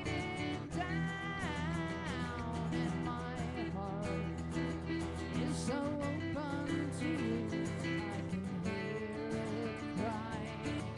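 Live acoustic band playing a break between verses: acoustic guitars strum under a melody line that bends and slides in pitch.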